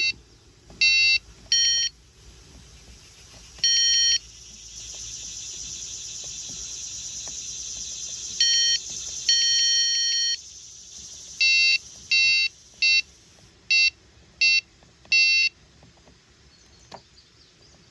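About a dozen electronic beeps from a multimeter's continuity tester, short and longer ones at uneven intervals, starting and stopping as the probes make and break contact while fuses are checked. A steady hiss runs for several seconds in the middle.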